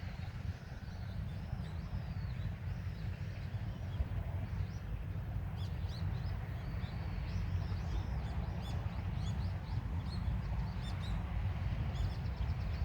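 Small birds chirping in short, high calls, more of them from about halfway through, over a steady low rumble.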